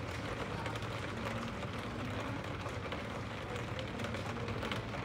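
Steady rain pattering in a dense run of small ticks, over a low steady hum.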